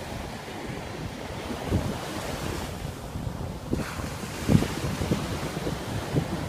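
Surf breaking and washing up a sandy beach, with wind buffeting the microphone in low gusts, the strongest about halfway through.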